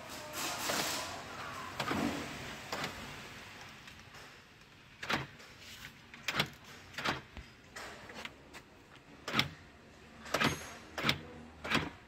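Car power door lock actuators clunking as the central-locking switch on the driver's door is toggled between lock and unlock. There are about seven sharp clicks from about five seconds in, after some rustling handling noise.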